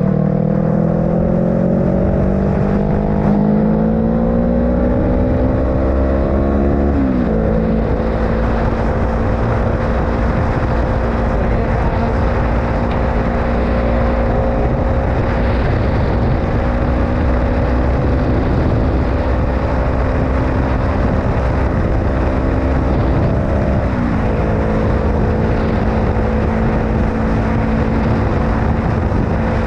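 Honda CBR500R's parallel-twin engine under way: its pitch rises as it accelerates, drops with an upshift about seven seconds in, then holds steady at cruise, with a brief dip in revs near the end. A steady rush of wind noise runs underneath.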